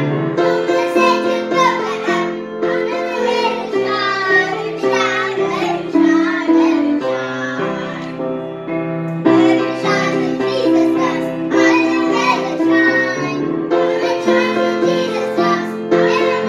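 A woman and children singing a gospel song in unison to grand piano accompaniment, with a short thinner stretch about eight seconds in.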